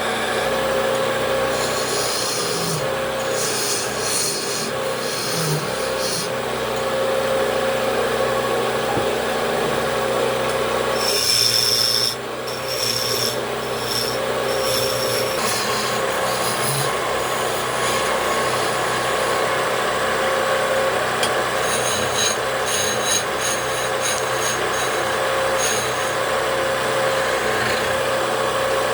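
Wood lathe running steadily while a turning tool cuts into a spinning wooden table leg, with bouts of high scraping and shaving noise as the tool is pressed to the wood, three times.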